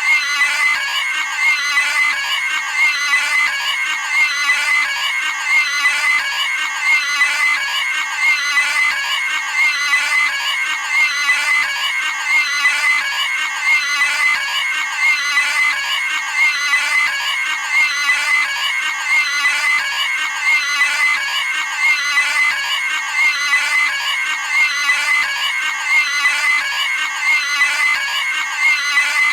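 Cartoon pig scream sound effect, a high-pitched squeal repeated over and over in an unbroken loop.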